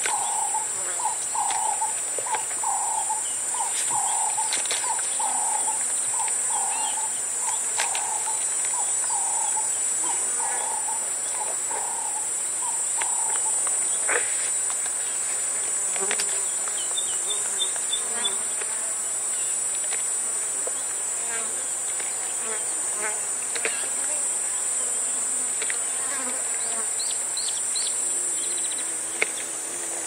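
Loud, steady cicada chorus, with a giraffe feeding close by on acacia: scattered short clicks and snaps from browsing. For the first half a bird repeats one call about one and a half times a second, then stops; short high bird trills come later, and flies buzz.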